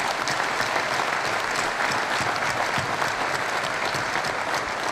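Audience applauding: many hands clapping together steadily.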